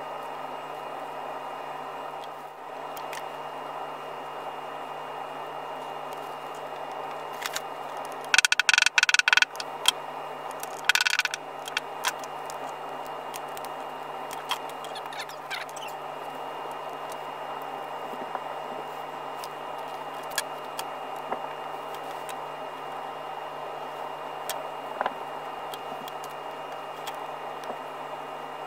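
Steady background hum, broken by two short bursts of jangling, rattling clatter about eight and eleven seconds in and a few scattered light clicks, as small leather and metal items are handled on a workbench.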